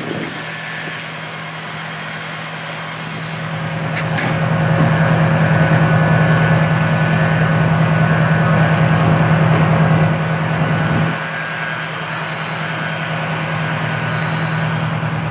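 A large engine running steadily with a deep drone. It grows louder about four seconds in, holds there, and drops back about eleven seconds in. A short click sounds about four seconds in.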